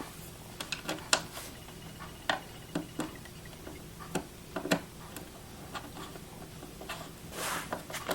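Screwdriver tightening small screws into a plastic machine housing: scattered, irregular light clicks and ticks as the tip turns in the screw heads and the casing shifts.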